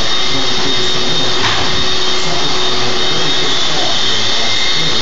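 Vacuum cleaner running steadily, a loud even rush of air with a constant high motor whine.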